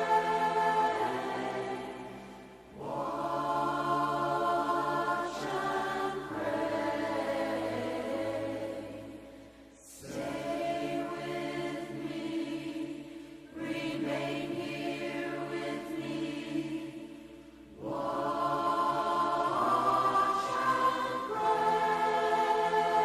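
Choral music: voices singing long, held chords in slow phrases that fade away and begin again every seven or eight seconds.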